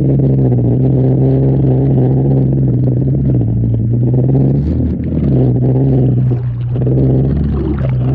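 Small engine of a low-riding watercraft running steadily at one pitch. It eases off briefly about five seconds in and again a moment later, with water hissing and splashing around the hull.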